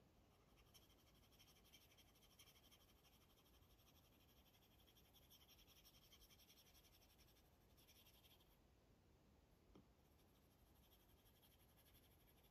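Faint scratching of a stylus drawing on an iPad's screen, in runs of short strokes, pausing about eight seconds in and starting again shortly after. A single light click comes at about ten seconds.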